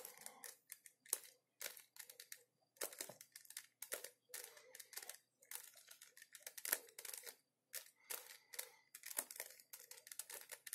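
Plastic 3x3 Rubik's cube being turned layer after layer through a sequence of moves: faint, irregular plastic clicks and scrapes as the faces rotate.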